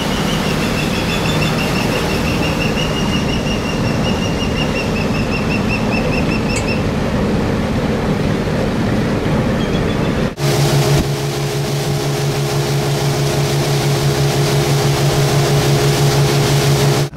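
Motorboat engine running under way, with a steady rush of wind and water. About ten seconds in the sound cuts sharply, and after that the engine's steady low hum stands out more clearly.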